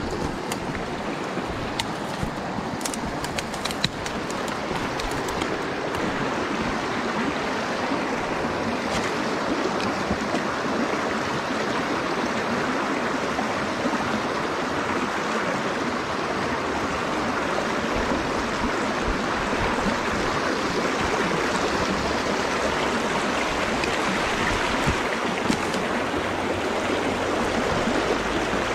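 Shallow creek water rushing over rocks in a riffle, a steady rushing noise, with a few light clicks in the first few seconds.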